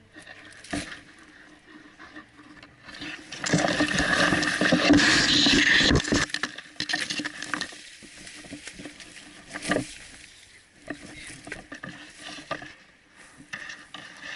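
Rustling and crunching of a person moving through brush and vegetation, loudest for a couple of seconds from about three and a half seconds in, with a few sharp knocks.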